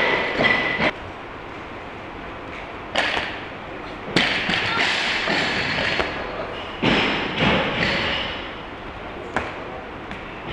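A barbell loaded with bumper plates being lifted in a clean and jerk: the plates clank and the lifter's feet stamp on the platform in a few separate thuds. There is one around three seconds in, one as the bar is caught in the clean about four seconds in, a pair during the jerk's drive and split landing around seven seconds, and a lighter one near the end.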